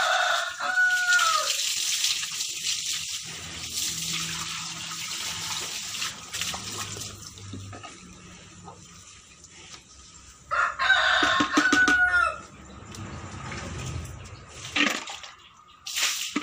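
A rooster crowing twice, about ten seconds apart, over water running from a hose into a concrete cattle feed trough for roughly the first half.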